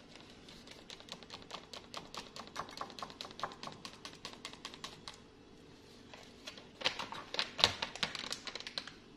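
Paper pancake-mix bag crinkling and ticking as powder is shaken out of it into a bowl, a quick run of light clicks that gets louder for a couple of seconds near the end.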